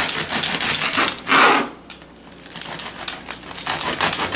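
Knife sawing through a crusty, oven-warmed baguette on a plastic cutting board, the crust crackling in rapid ticks. A louder rasp comes just over a second in, then a short lull before the sawing resumes.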